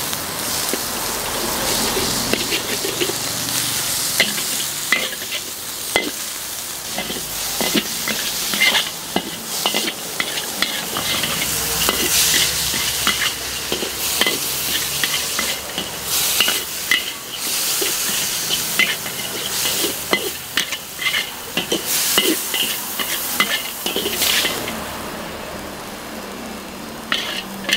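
Pad Thai frying in a hot steel wok: a steady sizzle, with a metal ladle stirring and scraping and clinking often against the wok. The sizzle dies down near the end as the noodles are scooped out onto a plate.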